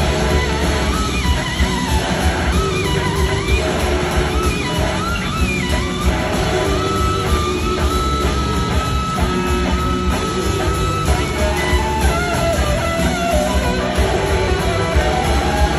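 Live electric slide guitar solo on a Gibson SG, with gliding, bending notes and one long held high note about halfway through, over drums and bass from the full band.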